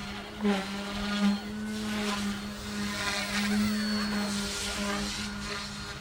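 Omphobby M1 micro electric RC helicopter flying: a steady motor and rotor whine, with the rush of the blades swelling and easing several times as it manoeuvres.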